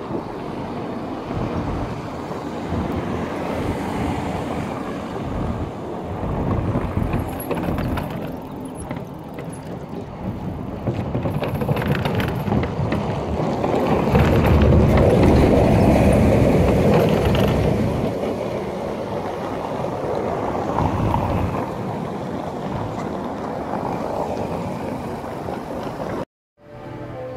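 Outdoor noise picked up by a smartphone microphone: a rumbling hiss that swells about halfway through and cuts off suddenly near the end.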